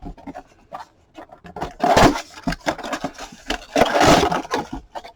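Rustling and scraping of cardboard and packaging as a trading-card box is opened and handled, with louder noisy stretches about two and four seconds in.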